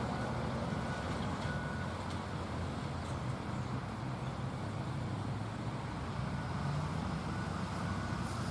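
Steady low rumble of road traffic, with vehicles running by.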